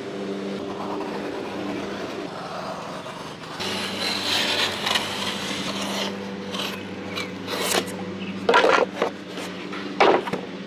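Utility knife scoring the paper face of a drywall sheet in scraping strokes. Near the end come a few sharp, loud cracks and tears as the gypsum board is snapped along the score and cut through. A steady low hum runs underneath.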